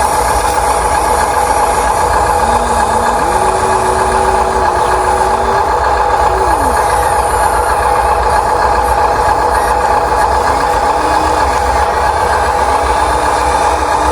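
Electric motors and gearboxes of radio-controlled toy construction machines running with a steady whine, while a fainter tone slides up and down in pitch every few seconds.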